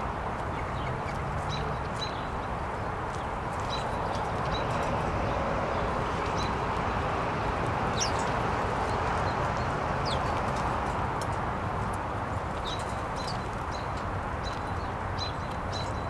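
Small songbirds at a seed feeder giving scattered short, high chirps, with a couple of quick downward-sliding calls partway through, over a steady rushing background noise.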